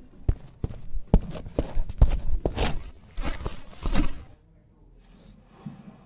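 Foley effects: an irregular run of sharp clicks and knocks mixed with rustling, lasting about four seconds before it stops.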